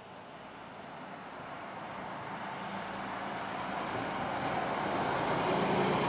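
Articulated city bus approaching, its engine hum and tyre noise on the road growing steadily louder.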